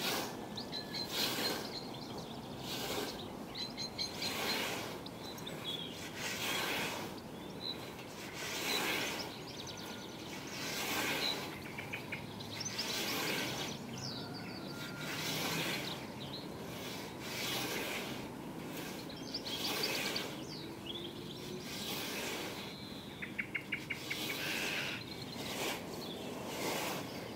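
Scythe mowing grass: each stroke of the 32-inch riveted Isaac Nash blade on a Scottish Y-frame snath makes a swish through the sward, about one every two seconds. Birds chirp between the strokes.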